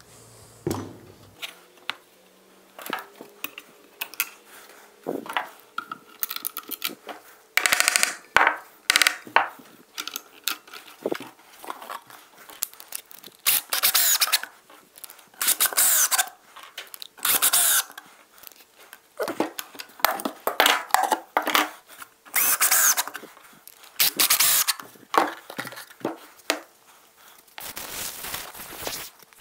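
Cordless drill-driver driving wood screws into ash and plywood pieces in repeated short bursts of about a second each, with knocks and clatter as the wooden parts and tools are handled and set down between them.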